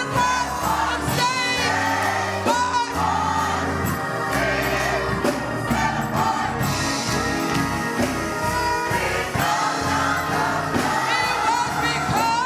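Church choir singing a gospel song with vibrato-laden voices over a steady instrumental accompaniment with sustained bass notes.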